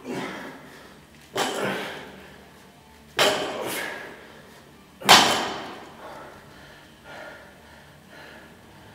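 Loaded 80 kg Olympic barbell with rubber bumper plates set down hard on a plywood deadlift platform between fast reps: four thuds about one and a half to two seconds apart, the last about five seconds in and the loudest.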